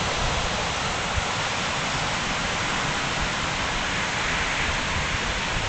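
Wind rushing over the microphone: a steady hiss with an uneven low rumble underneath.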